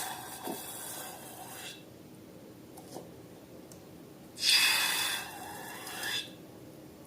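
Glossy slime being squished and worked by hand, two stretches of wet, sticky hissing and crackling, the second louder, about four seconds in.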